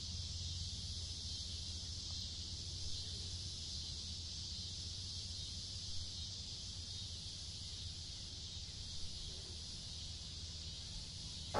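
Steady outdoor ambience: an even high hiss over a low rumble, ending in a sharp click.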